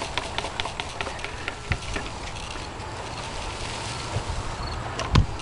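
Dry, frost-killed peanut plants rustling and crackling as they are pulled up and handled, with a quick run of crackles in the first two seconds and a single thump near the end.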